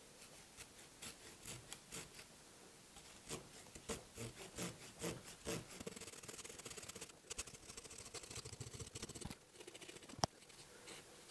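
Small hand pruning saw cutting through a branch of very hard hawthorn, first in separate back-and-forth strokes, then in quicker short strokes from about six seconds in. A single sharp click near the end.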